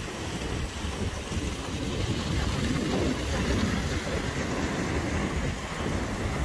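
Heavy rain hissing steadily over a continuous low rumble of distant thunder.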